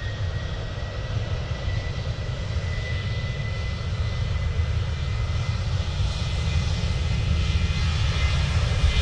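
Airplane engines running, a steady high whine over a low rumble, gradually growing louder.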